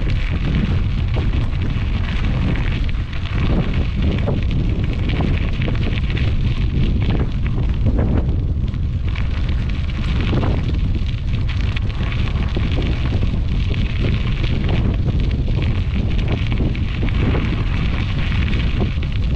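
Wind buffeting the microphone of a camera on a moving bicycle: a loud, steady rumble with a rushing hiss above it.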